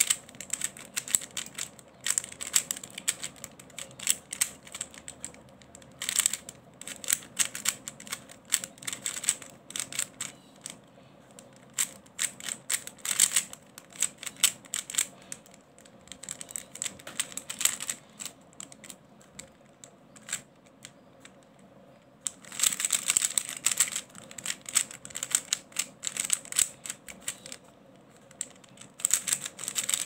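Plastic 3x3 Rubik's cube being turned by hand: quick runs of clicking and clacking as the layers snap round, in bursts with short pauses between, busiest about two-thirds of the way through.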